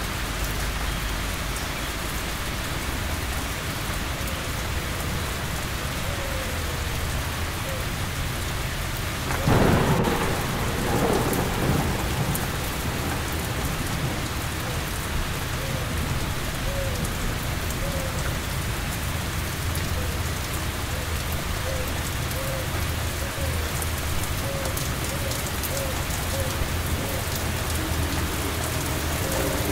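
Steady heavy summer rain falling. About nine and a half seconds in, a sudden crack of thunder breaks out, with a second rumbling swell a second or so later before it fades back under the rain.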